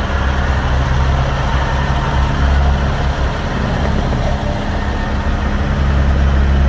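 A long-nose semi tractor's diesel engine running with a steady low note as the truck drives slowly past at low speed.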